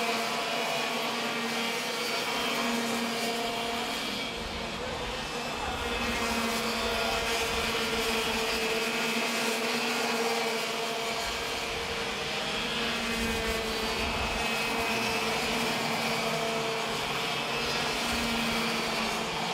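Racing kart two-stroke engines running at speed around the track, a steady engine drone with overtones and several karts' engines overlapping.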